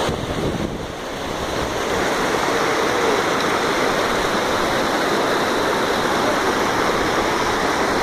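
Glacier-fed mountain stream cascading over boulders: a steady rush of water that grows a little louder about two seconds in.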